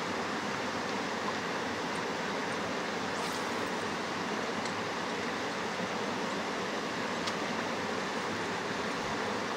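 Mountain river rushing over rocky rapids: a steady, even wash of fast-flowing water.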